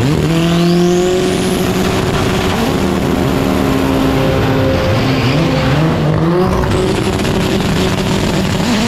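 Drag-race car engine held at high revs during a burnout, with tyre squeal underneath. The revs step up near the start, then dip and climb again around five to seven seconds in.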